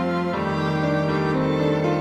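Violin, cello and piano playing a slow, tender instrumental passage with held string notes over a steady piano accompaniment, without voice; the harmony changes about a third of a second in.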